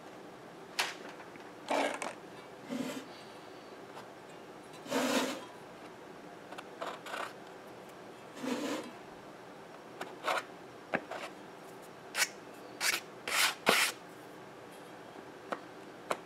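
Short scraping and rubbing strokes on a hard surface, about a dozen, irregularly spaced, each lasting a fraction of a second.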